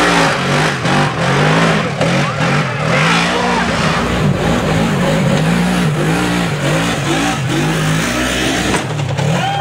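Polaris RZR XP 900 side-by-side's engine revving up and down over and over, roughly once a second, under load as it climbs a rocky hill, with scattered sharp knocks.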